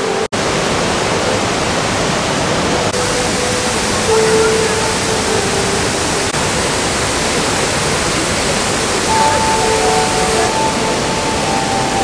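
Steady loud rush of a 26 m waterfall pouring into its pool, with a momentary dropout just after it starts. Faint held tones sound now and then over the rush.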